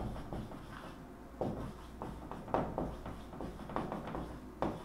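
Writing on an erasable board: a handful of short, faint pen strokes scattered through, over a low steady room hum.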